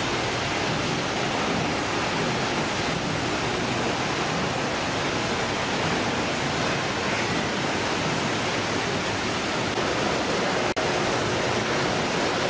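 Steady, even rushing din of fish-processing machinery and conveyor belts running, with no distinct rhythm. It drops out for an instant near the end.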